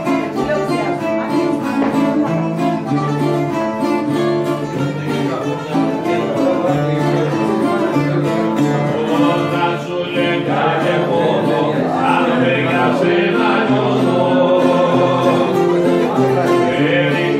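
Live Cretan folk music: an acoustic guitar and a laouto (Cretan long-necked lute) playing a tune together, with a man's singing voice that grows stronger about ten seconds in.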